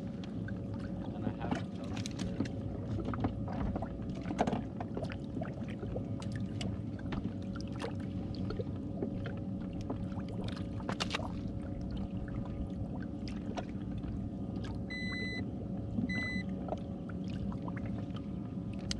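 Steady hum of a small electric motor aboard a bass boat, with scattered clicks and knocks of gear being handled. Two short electronic beeps sound about 15 and 16 seconds in.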